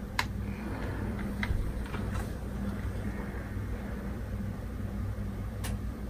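Steady low hum of running computer hardware, with a few light clicks.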